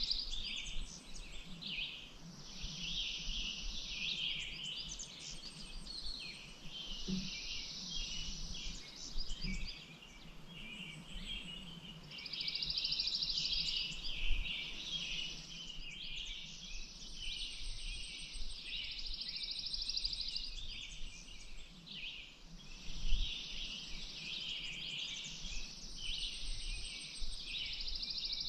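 Outdoor bird chorus: many birds chirping and singing at once. High buzzing trills of about two to three seconds each come back again and again.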